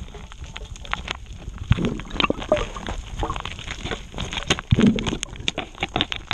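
Muffled underwater knocks and clicks as a speargun and hand scrape and tap against reef rock while digging into a hole, with two dull thumps, about two seconds in and again near five seconds.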